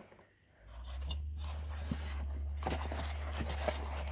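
Light clicks and scrapes of a metal sash lock and its packaging being handled, over a steady low hum that starts about half a second in.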